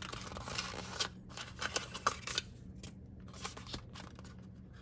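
Hexagonal cardboard blind box being opened by hand: a rustle of the paperboard sliding in the first second, then a scatter of sharp ticks and snaps as the flaps are pried and bent open, thinning out toward the end.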